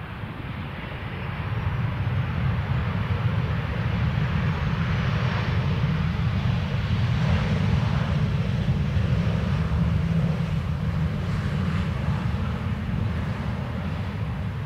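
Boeing 737-700 jet's CFM56-7B turbofans as the airliner passes on its landing approach: a low, steady jet rumble that swells over the first two seconds, is loudest around the middle, and slowly eases off toward the end.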